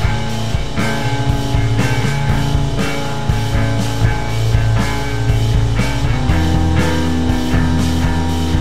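Unfinished instrumental rock mix: layered electric guitars, bass guitar and a drum kit playing the chorus, with no vocals. The bass moves to a new note about six seconds in.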